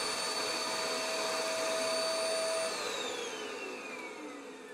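Small hand-held vacuum cleaner with a hose running steadily at the carpet, then switched off about two and a half seconds in, its whine falling in pitch as the motor winds down.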